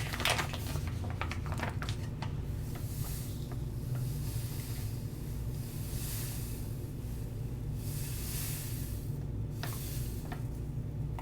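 Citric acid granules poured from a bag into a measuring cup: a few light clicks, then several soft rushes of sliding granules, over a steady low hum.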